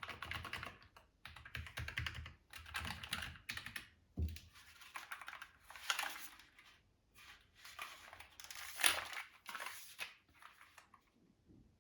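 Typing on a Keychron K5 Max keyboard with low-profile red switches: bursts of rapid key clicks with short pauses, and a single low thump about four seconds in.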